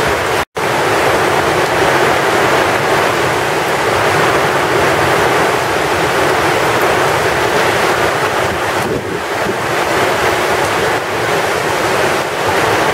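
Heavy tropical-storm rain pouring steadily, with wind gusting across the microphone. The sound cuts out for a moment about half a second in.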